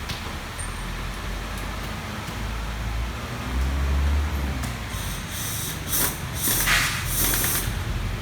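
A low motor rumble that swells briefly, followed by several short hissing sprays about five to seven and a half seconds in, the strongest near the end.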